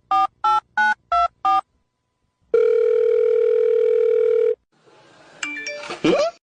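Telephone keypad beeps, several in quick succession at about three a second, then a gap and one steady tone about two seconds long. A short rustling noise with a brief squeak follows near the end.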